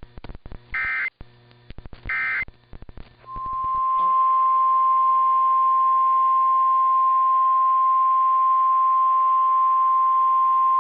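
Three short Emergency Alert System SAME data bursts, about a second and a half apart: the end-of-message code of a weather alert. A few seconds in, a steady single-pitch NOAA Weather Radio alert tone near 1 kHz starts over radio hiss and holds on, announcing the next National Weather Service warning.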